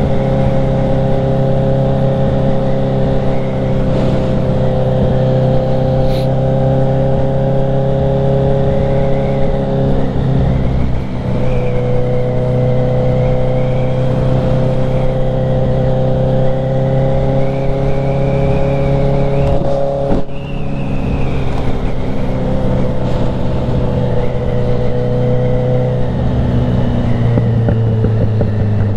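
Kawasaki Z900's inline-four engine running under steady throttle, heard onboard, its pitch climbing slowly. It breaks briefly twice, about ten and twenty seconds in, and comes back a little lower each time, as at gear shifts. Near the end the revs fall away as the bike slows.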